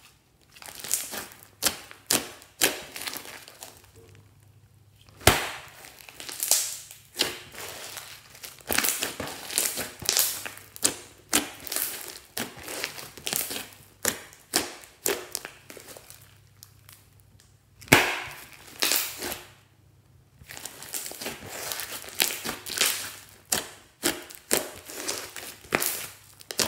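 Hands squeezing, stretching and folding glossy slime mixed with small foam beads: sticky, wet clicks, pops and crackles in irregular bursts, with quiet pauses about four seconds in and again around twenty seconds.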